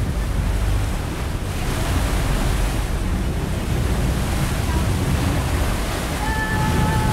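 Wind buffeting the microphone over the steady rush of open-ocean water alongside a boat. Near the end a brief steady tone sounds.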